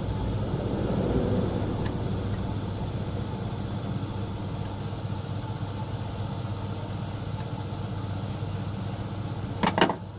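Car engine idling steadily, with a quick cluster of sharp knocks near the end.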